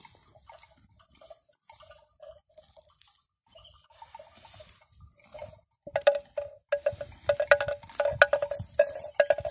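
A bell hanging from a water buffalo's neck, clanking irregularly on one ringing note as the animal grazes and moves. It is faint at first and turns loud and rapid about six seconds in.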